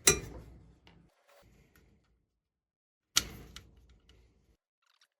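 Two sharp clacks about three seconds apart, each with a short tail of handling noise and a few light ticks: tools and parts being handled at a workbench while the power cord and grommet are taken off an old lamp.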